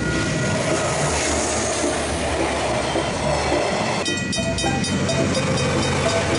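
Train passing over a level crossing, with a loud, steady rumble of wheels and wagons. About four seconds in, a rapid, repeated ringing joins it.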